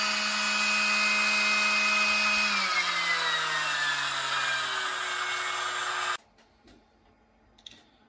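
Proxxon MF70 micro mill spindle running on its newly fitted brushless (BLDC) inrunner motor: a steady whine that holds its pitch, then slides down as the spindle slows, and cuts off suddenly about six seconds in, leaving near silence.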